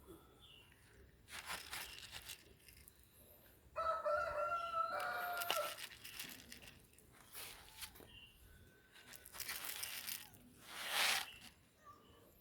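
A rooster crows once, a pitched call of about two seconds in two parts, starting about four seconds in. Short bursts of rustling noise come before and after it.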